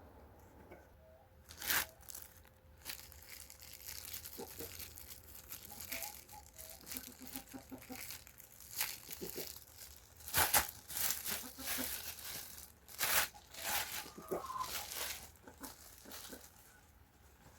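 Irregular crinkling and rustling of something being handled, in uneven bursts, loudest a couple of times in the second half.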